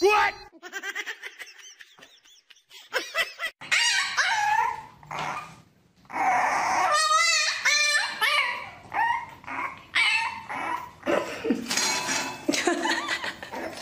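A puppy whining and yipping, a run of cries that waver up and down in pitch, starting a few seconds in after a quiet stretch.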